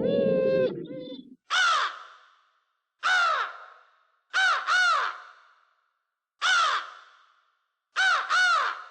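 A held wailing cry over a low rumble cuts off under a second in. It is followed by harsh crow caws about every one and a half seconds, some of them quick double caws.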